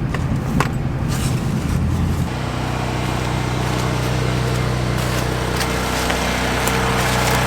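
A vehicle engine running steadily. Its note steps up about two seconds in and then holds level.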